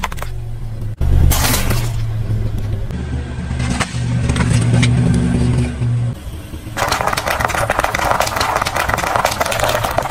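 Car tyre crushing things under a slowly moving car, its engine running low, with a loud crunch about a second in. From about seven seconds in, a dense run of crackling pops as the tyre rolls over bubble wrap.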